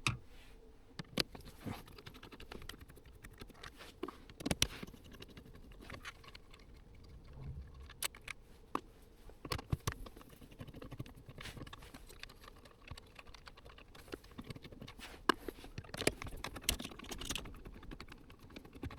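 Irregular small clicks and taps of a hand screwdriver and metal screws against plastic dashboard trim as the Torx screws holding a car radio head unit are undone.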